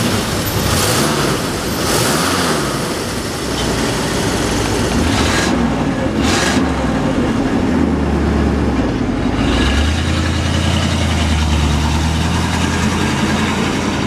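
A 1960 Ford Thunderbird's 352 V8 engine idling steadily through its dual exhaust, with other car engines running in the background.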